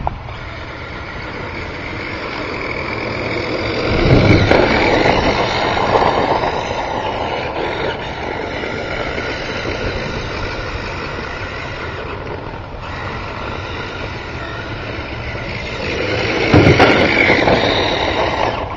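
Radio-controlled toy cars running, a steady mechanical whine with several high tones. It grows louder twice, about four seconds in and again near the end.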